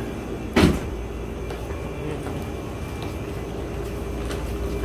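A single sharp knock about half a second in, over the steady low hum of the shop, with a few faint clicks after it.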